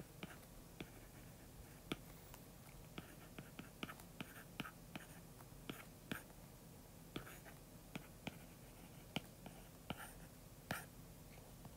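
Faint, irregular clicks and short light scratches of a stylus writing on a tablet's glass screen, several a second.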